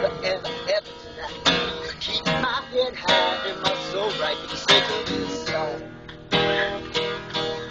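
Acoustic guitar playing an instrumental blues passage, mixing picked single notes with strummed chords, with some notes bent in pitch.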